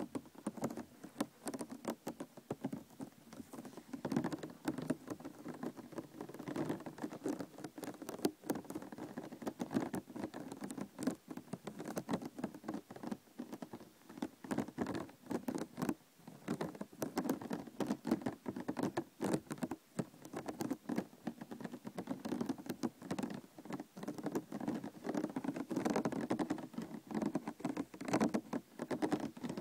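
A plastic container being tapped and handled with the fingers: a steady run of quick, light taps and scratches on plastic.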